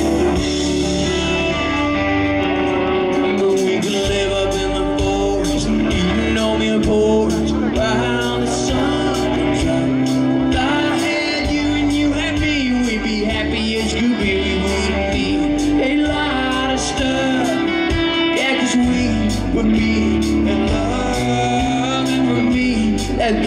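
Live country band playing, with drums, electric and acoustic guitars and bass under a man singing lead into a microphone.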